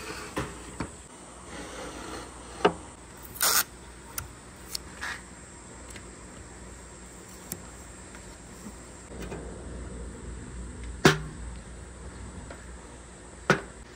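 Wooden marble-track pieces being handled and set down: scattered wooden knocks and clicks, the loudest about 3 s in and again about 11 s in, with a short rasp about 3.5 s in.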